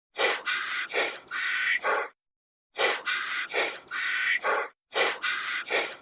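An animal call played as an edited loop: a group of three calls, short, longer, short, repeats about every two seconds with dead silence between groups.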